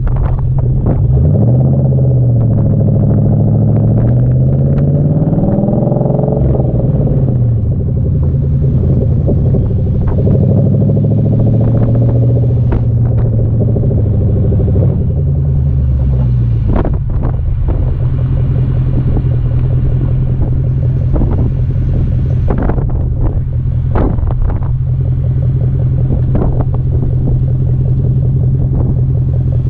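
Exhaust of a 2012 Ford Mustang GT's 5.0 L Coyote V8 through Flowmaster Outlaw axle-back mufflers, heard right at the tailpipe while driving. It accelerates with a rising note, the pitch drops once, the revs climb and fall away, and for the second half it holds a steady low drone.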